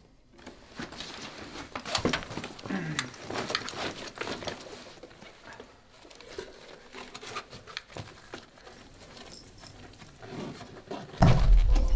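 Irregular rustling and light knocks and clicks of someone moving about and handling things. About a second before the end, a loud low rumble comes in suddenly.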